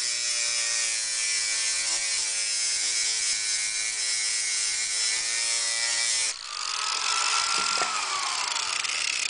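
Angle grinder running with its disc grinding a steel lawn mower blade: a steady motor whine under a loud, hissing grind. About six seconds in the sound briefly drops, then the grinding carries on.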